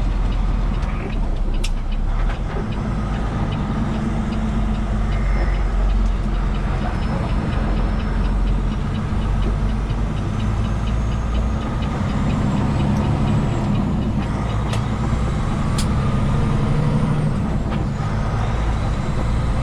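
Cab sound of a 2022 Peterbilt 389 semi truck driving: its diesel engine runs steadily at a low hum, with faint rapid ticking through the middle.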